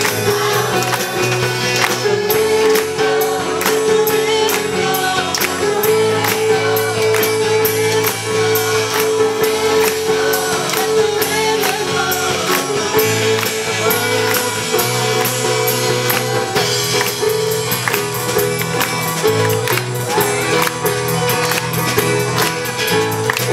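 Live church music group of singers and instrumentalists performing a praise song, with voices singing over the band and a steady rhythmic percussion beat.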